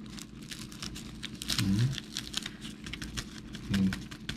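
Powdered coffee creamer shaken out of a torn foil-lined MRE pouch into a mug of coffee: a rapid run of light ticking and crinkling from the pouch and the pouring powder. Two short low hums from a person come about halfway through and near the end.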